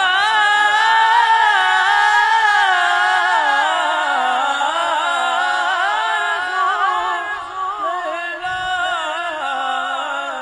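A single voice singing one long, drawn-out melodic phrase with no instruments, its held notes wavering and sliding slowly in pitch.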